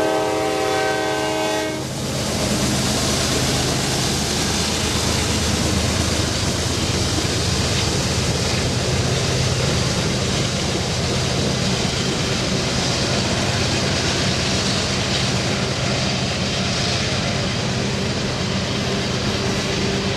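A diesel freight locomotive's horn sounding a chord, cutting off about two seconds in. Then the locomotives of a Norfolk Southern freight pass, working upgrade under load: a steady diesel drone with rail and wheel noise.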